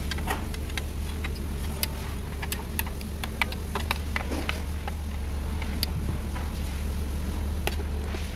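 Scattered sharp metallic clicks from a socket wrench working the bolts of a CVT transmission oil pan, over a steady low hum.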